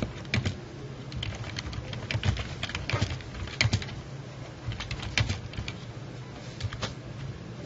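Computer keyboard typing: irregular keystroke clicks as a line of text is typed.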